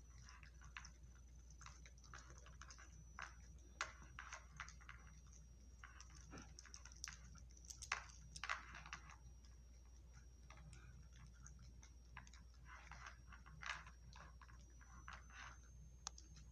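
Dog eating from a plastic bowl: faint, irregular crunching and clicking as she chews her food.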